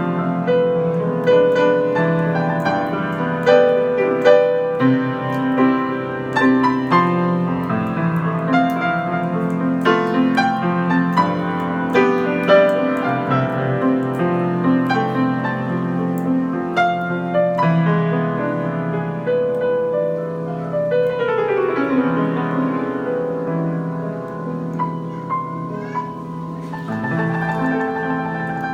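Yamaha G5 grand piano played solo: a melody over chords, with a quick downward run of notes about two-thirds of the way through.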